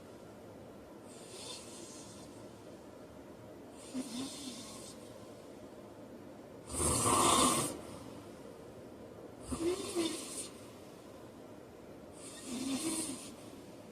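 A man snoring in his sleep: five snores at an even pace of about one every three seconds, the one near the middle the loudest.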